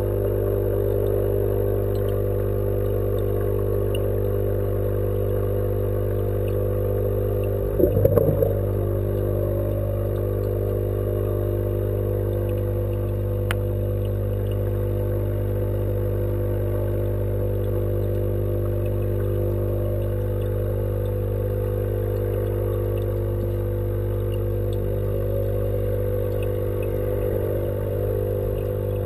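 Steady low hum from the aquaponics tank's running equipment, heard through the water, with one brief louder rumbling disturbance about eight seconds in and a single click later.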